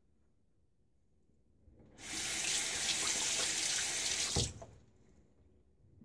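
Bathroom sink tap running for about two and a half seconds as the razor is rinsed under it, cutting off with one sharp knock.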